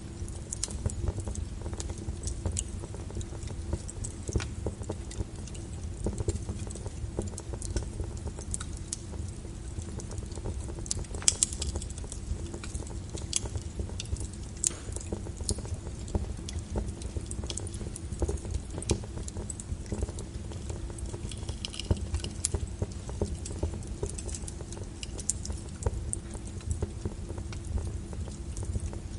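Wood fire in a fireplace crackling, with frequent small irregular pops over a steady low rumble of the flames, and one sharper pop about eleven seconds in.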